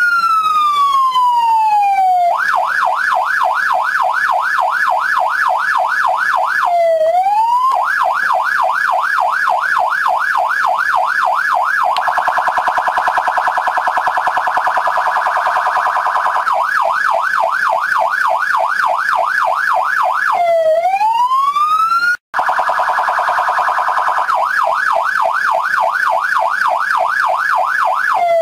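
American-style electronic police siren switching between its tones every few seconds: a slow falling-and-rising wail, a rapid yelp, and a much faster warble. There is a brief cut-out about two thirds of the way through.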